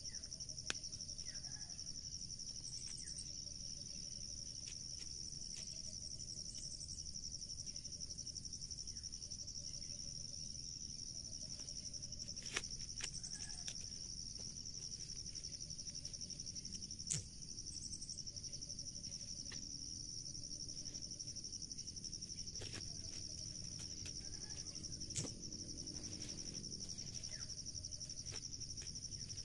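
Steady high-pitched insect chorus with no break. A few sharp clicks and crackles come now and then from dry corn husks being handled and torn.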